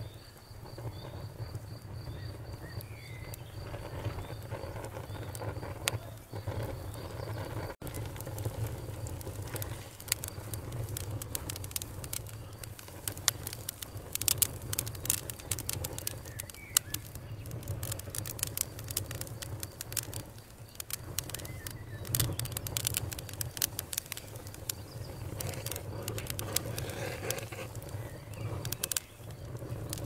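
Wood fire burning in a fireplace: logs crackling with many sharp pops over a steady low rumble of the flames. The popping gets busier about a third of the way in.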